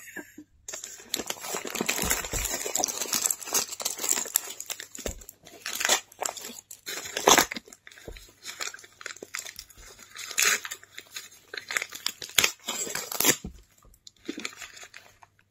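Brown paper and plastic parcel wrapping, taped with packing tape, crinkling and tearing as it is ripped open by hand, with several louder sharp rips. It stops about two seconds before the end.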